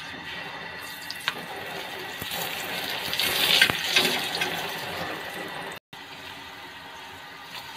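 Paratha frying in ghee on a hot iron tawa, a steady sizzling hiss that swells in the middle, with a few sharp ticks from the spatula pressing the bread.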